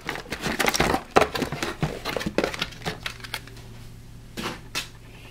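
Cardboard box packaging of a vinyl figure being handled and pulled open. A busy run of rustles, scrapes and small taps lasts for the first couple of seconds, then only a few soft rustles.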